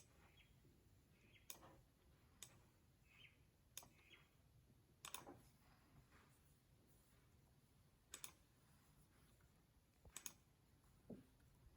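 Near silence broken by about seven faint, sharp clicks of a computer mouse, spaced unevenly a second or more apart.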